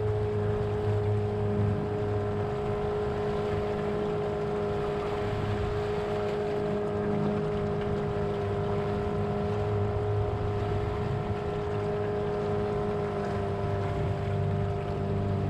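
Small aluminium boat under way, its motor running steadily with a constant whine, over wind and water noise.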